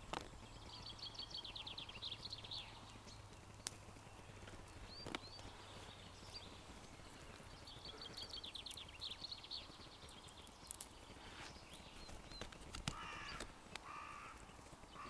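Crows calling in bouts of rapid, rasping caws, several times over, with small clicks and rustles from hands picking flowers off a spiny gorse bush.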